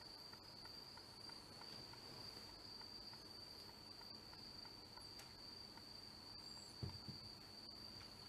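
Near silence: room tone with a faint, steady high-pitched whine, and one soft low thump about seven seconds in.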